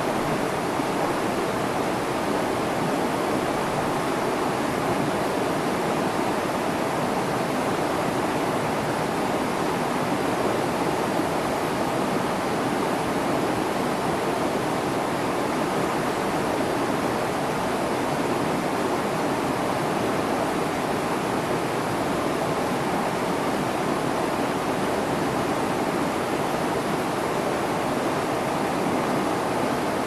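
Shallow mountain stream running over rocks and pebbles, a steady, unbroken rush of water.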